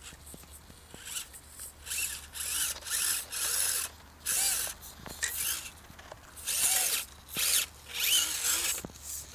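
Losi 1/24 Trail Trekker RC crawler's small electric motor and gears whining in a series of short bursts of throttle, each spinning up and winding back down.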